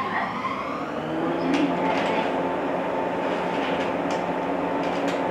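A standing electric multiple-unit train's on-board machinery humming steadily. It whines up into a fixed pitch during the first second, with a few short hissing ticks over the top.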